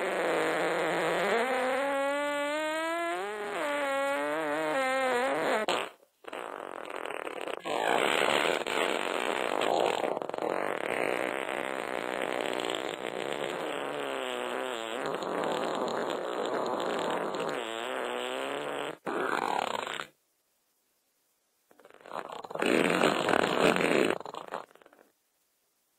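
A run of fart sound effects: first a long one with a wavering, sliding pitch lasting about six seconds, then a long noisy one lasting about thirteen seconds, then two short ones separated by silence.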